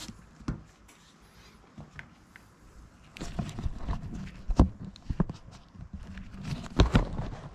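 Handling noise: scattered knocks and clunks at uneven intervals, with a low rumble setting in about three seconds in, as the camera and plastic oil containers are moved about under a go-kart.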